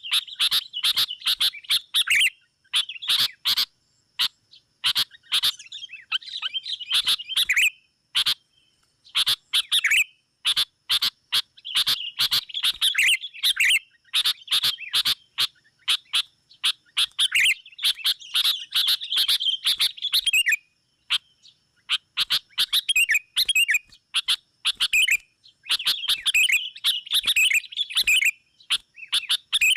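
Sooty-headed bulbuls chattering in quick, harsh bursts of a second or two with short gaps between, the agitated rival-challenging call used as a lure for wild bulbuls. A faint steady high whine runs underneath.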